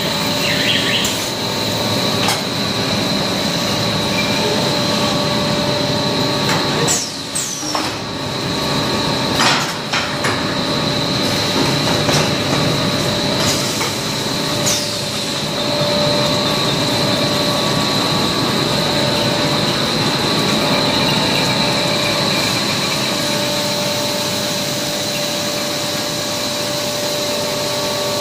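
Double-layer stretch film machine running: a steady mechanical drone with a constant high whine and a lower hum, and a few short sharp clicks or knocks along the way.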